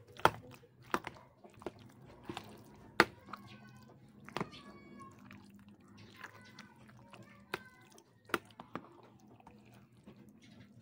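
A metal spoon stirring a bowl of macaroni salad, clinking and knocking sharply against the bowl every second or so. A few faint high-pitched squeaky cries come around the middle, over a low steady hum.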